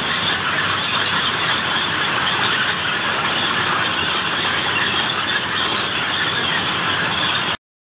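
Tracks of an upside-down tank running, with a treadmill mounted on them and a person running on it: a steady, loud mechanical noise that cuts off abruptly near the end.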